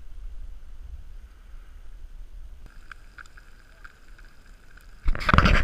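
Bacon sizzling in a small frying pan on a JetBoil camp stove, a faint steady fizz with small crackles from about halfway in. Near the end a loud rumbling burst drowns it.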